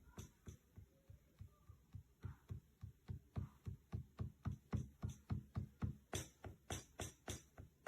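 Electronic drum sounds from a Native Instruments Maschine Mikro MK3: an even run of short, deep kick-like hits about four a second. Sharper hi-hat-like ticks join in near the end.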